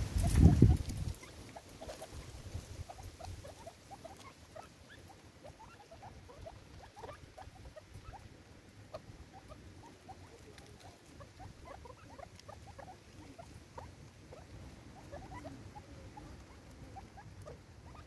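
Game birds pecking seed off a wooden stump: many quick, soft, irregular ticks and taps, after a loud low thump about half a second in.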